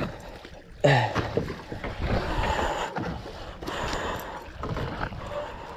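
Water splashing and handling noise as a fish is hauled by hand from the sea into a small boat, with a sudden knock about a second in.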